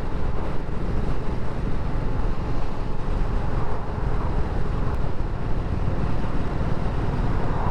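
BSA Gold Star 650's single-cylinder engine running steadily at a road cruise, mixed with wind noise on the microphone.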